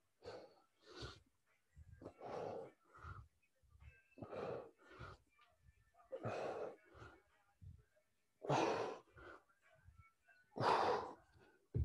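A man breathing hard in a steady rhythm of in-and-out breaths while doing goblet squats with a kettlebell. The two loudest exhales come near the end.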